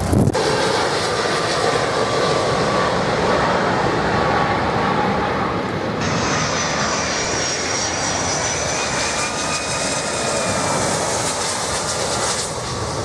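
Boeing 757 airliner passing low on final approach to land, its jet engines giving a steady loud rush with a faint whine; about six seconds in the sound changes abruptly and a higher whine comes in over the rush.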